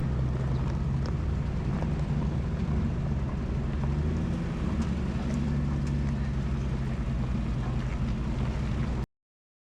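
A vehicle engine running at a steady idle, cutting off abruptly near the end.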